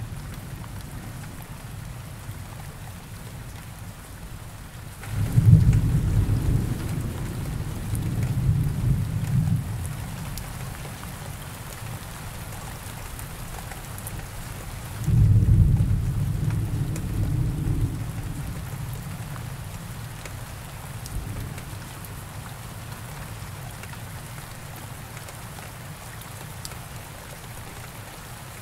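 Steady rain with two low rolls of thunder. The first starts about five seconds in and rumbles for about five seconds. The second starts about fifteen seconds in and fades away over the next few seconds.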